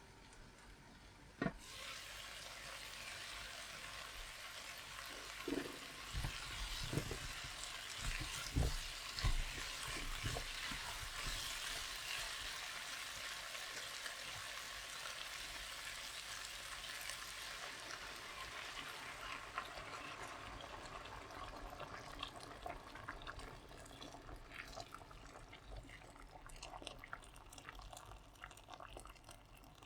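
Food sizzling in a hot pan: a hiss that starts suddenly just after a click and slowly dies down. A few knocks of utensils or cookware come in the first half.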